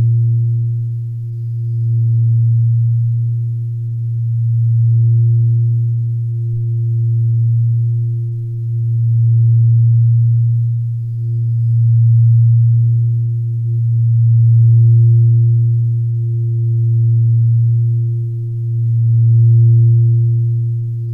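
Sustained low relaxation drone with a fainter higher tone above it, swelling and fading about every two and a half seconds.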